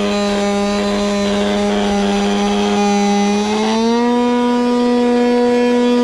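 Ecovacs Deebot robot vacuum running with a loud, sharp whine from its vacuum fan: a steady tone that steps up in pitch about three and a half seconds in and holds there. The noise is a sign of a fault in the fan, which may be a piece of plastic caught in it or a broken blade touching its cover.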